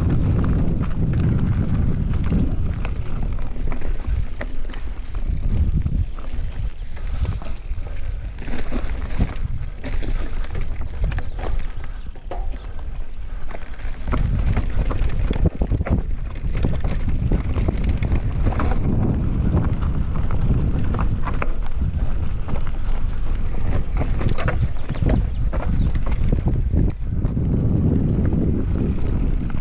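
Wind buffeting the camera microphone on a downhill mountain-bike descent, over a constant run of clicks, knocks and rattles from the Giant Reign full-suspension bike's chain and parts and its tyres on a rocky, leaf-covered dirt trail. The wind rumble eases between about 6 and 14 seconds in, where the rattling stands out more, then builds again.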